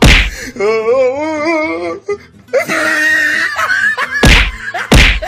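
Comedy slap sound effects: a loud smack at the start and two more near the end, about half a second apart. Between them comes a wobbling, wailing voice-like effect and a brief hissy squeal.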